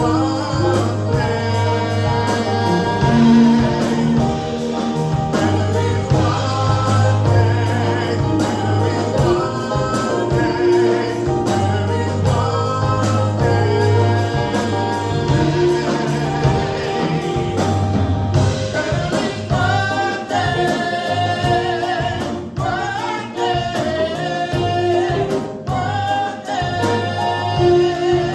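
Live gospel praise band with singers: sung vocal lines over held bass notes and a steady drum beat.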